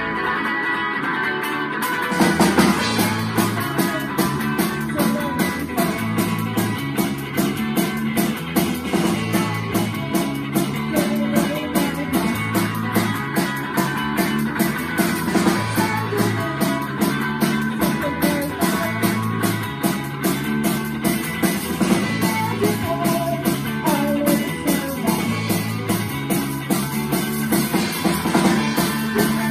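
Live rock band: guitar playing almost alone at first, then drums and bass come in together about two seconds in, and the full band plays on with a steady beat and busy cymbals.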